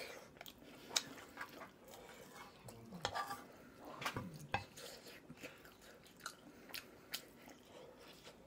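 Close-up chewing and mouth sounds of someone eating kimchi fried rice, with a metal spoon clinking against the frying pan several times, the sharpest clink about a second in.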